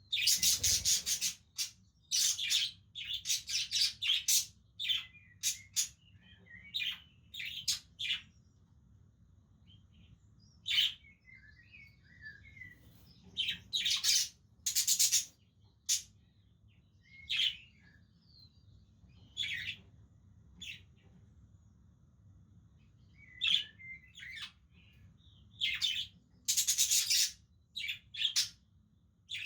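Budgerigars chirping: short, bright, high-pitched chirps in irregular clusters, with softer warbling chatter in the gaps.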